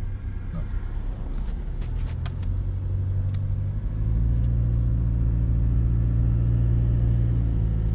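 Pickup truck's engine and road noise heard from inside the cab while driving. The low engine drone grows louder and steadier about halfway through as the truck pulls out of a turn and accelerates, with a few light clicks a couple of seconds in.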